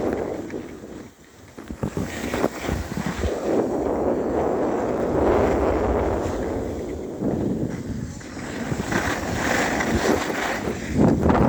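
Wind rushing over the microphone in gusts, swelling and easing, with a brief lull about a second in.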